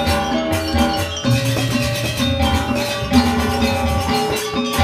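Balinese gong kebyar gamelan playing: bronze metallophones ring out in fast, dense struck patterns over two-headed kendang drums, with a low held tone about a second in.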